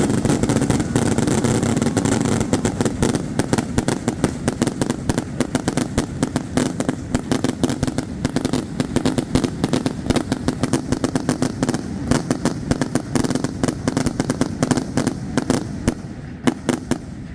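Fireworks going off in a rapid, crackling string of sharp reports, many cracks a second, over a steady low rumble; the barrage thins out near the end.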